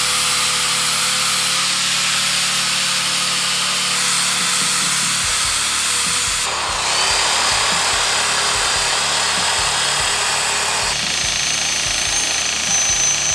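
Angle grinder grinding the cut ends of steel Sportster frame tubes back to the marked lines, in a steady run with a whine over the grinding. Near the end, a bench grinder's wheel works a tube end.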